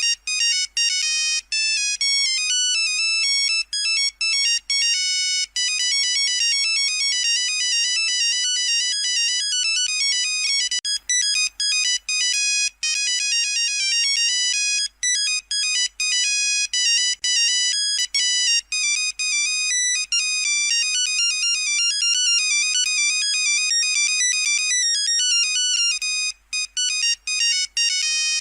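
Nokia 3310 ringtone playing: a quick melody of beeped notes sounded one at a time, with short breaks between phrases.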